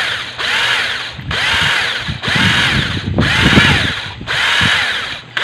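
Handheld electric drill with a 1/8-inch bit boring into oiled steel. It is run in short bursts about once a second, and the motor speeds up and winds down with each squeeze of the trigger. It is kept slow and not run continuously so the bit does not dull.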